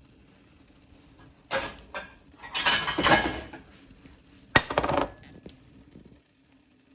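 Dishes and cutlery clattering in three short bursts. The last burst opens with a sharp clink about four and a half seconds in.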